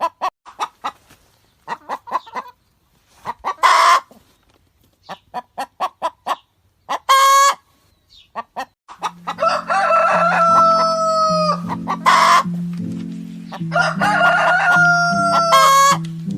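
Chickens clucking, with loud squawks now and then, then a rooster crowing twice in long, drawn-out crows. Background music comes in about halfway through.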